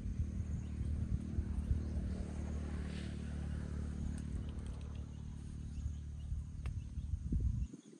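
Low background rumble that cuts off suddenly near the end, with a faint steady insect chirring high above it.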